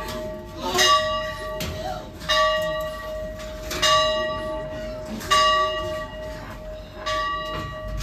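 Church bell tolling: five even strikes about a second and a half apart, each one ringing on into the next.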